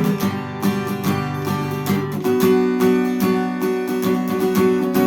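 Acoustic guitar strumming chords steadily with no voice, with a change of chord about two seconds in.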